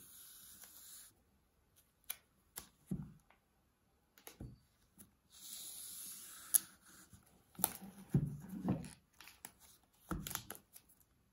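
Hands handling a white Amazon Echo Show 5 smart display, turning it over and setting it on a wooden table: two stretches of hissing rustle and scattered knocks and taps, the loudest knocks near the end.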